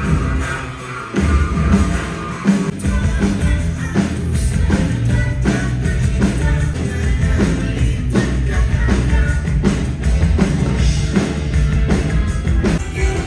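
Live rock music played loud over a concert PA during a band soundcheck, with a steady drum beat and heavy bass.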